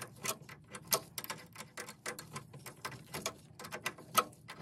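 Small steel open-ended spanner clicking against a brass fitting on a boiler's pipework as it is turned in short strokes to shut a drain point. A rapid, irregular run of sharp metal clicks, the loudest near the end.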